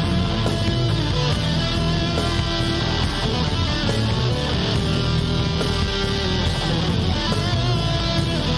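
Instrumental rock background music led by guitar, with a steady beat.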